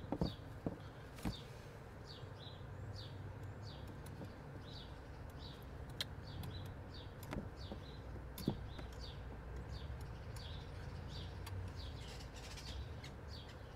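A bird calling over and over in short descending chirps, two or three a second, over a low steady hum, with a few light knocks and clicks from equipment being handled.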